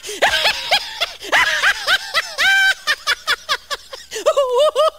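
High-pitched snickering laughter: a rapid run of short giggles, with one held note about halfway through.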